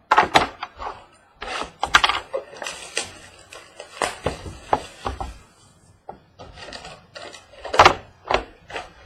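Cardboard trading-card hobby boxes being handled, shuffled and set down: an irregular run of knocks, taps and scrapes, the loudest knock near the end.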